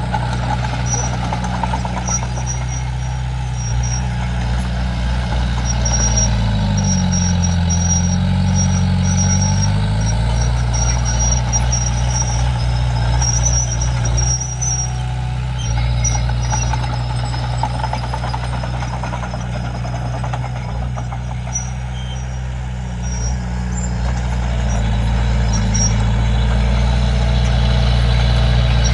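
Komatsu D31P bulldozer's diesel engine running loud and steady; its pitch sags about seven seconds in and comes back up a few seconds later, as when the engine is pulled down under load. Faint high-pitched squeaks come and go over it.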